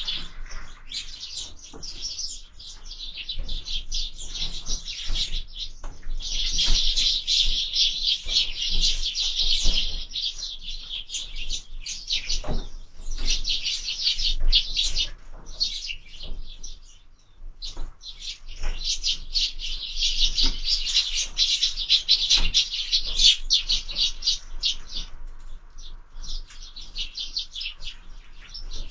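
A crowd of sparrows chirping rapidly and continuously, with a short lull a little past the middle, and scattered knocks among the chirps.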